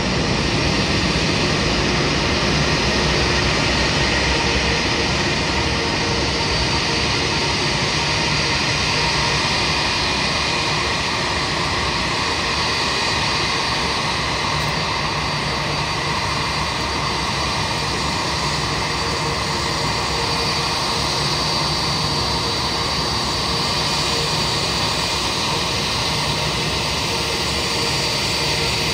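Steady jet aircraft engine noise, an even rush with a faint high whine held on one pitch.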